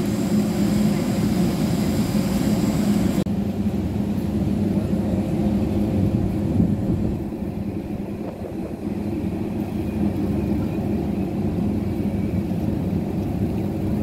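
A steady low engine drone over outdoor background noise. About three seconds in the sound changes abruptly to a duller mix as the hiss drops away.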